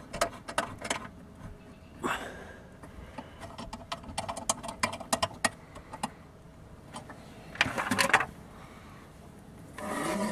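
Handling noise from a metal float valve being fitted onto a plastic bucket rim: many small sharp clicks and knocks, with a few short scraping rustles.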